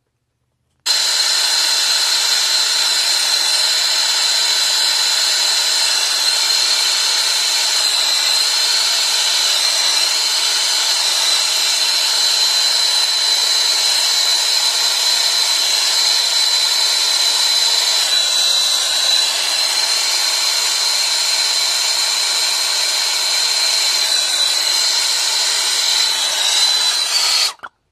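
Brazing torch burning steadily, a loud even hiss with a thin high whistle through it, as its flame heats the copper liquid-line joint on an air-conditioner evaporator coil. It starts about a second in and cuts off shortly before the end.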